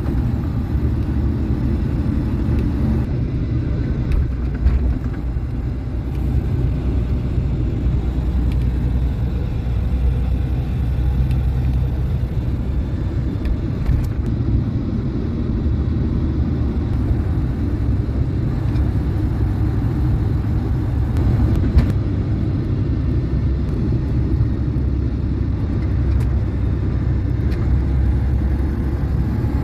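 Steady low rumble of road and engine noise heard from inside a moving vehicle, with a single sharp knock about two-thirds of the way through.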